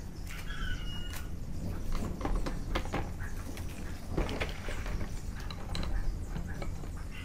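Plastic clicks, taps and rattles of a foldable GPS quadcopter's arms and parts being handled and fitted together by hand. About half a second in, a short, high, held chirp is heard once over a low steady hum.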